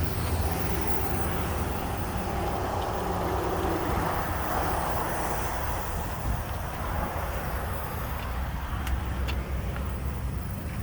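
Steady low vehicle rumble, with a couple of faint clicks about nine seconds in.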